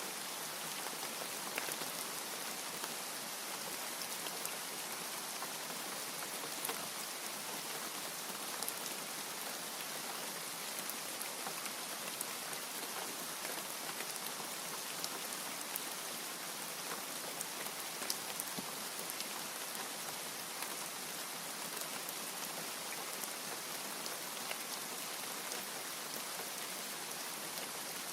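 Steady rain, an even hiss with many sharper single drops ticking through it. No thunder.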